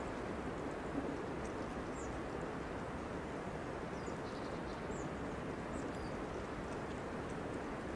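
Steady outdoor background noise with faint, short high chirps of small birds scattered through it.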